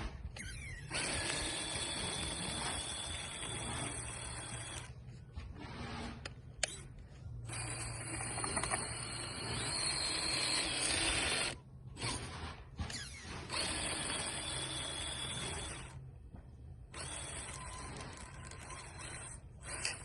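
Traxxas TRX4 Sport RC truck's electric motor and geared drivetrain running under throttle, starting and stopping about half a dozen times as it is driven and pushes snow.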